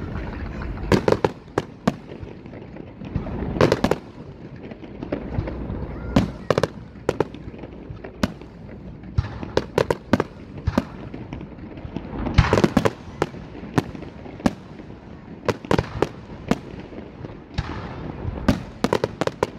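Fireworks display: aerial shells bursting in an irregular run of sharp bangs and crackles over a low rumble, the loudest burst a little past halfway.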